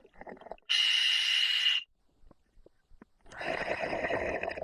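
Scuba diver breathing through an Apeks regulator in an OTS Guardian full face mask. There is one hissing inhale with a steady whistling tone about a second in, a pause, then a rougher exhale from about three seconds in.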